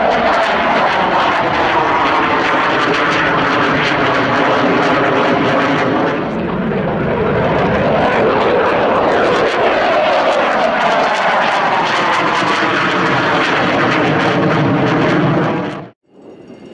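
Dassault Rafale's twin M88 jet engines heard as it flies past overhead: a loud, steady jet noise with tones that slowly slide down and up. It eases briefly about six seconds in and cuts off abruptly near the end.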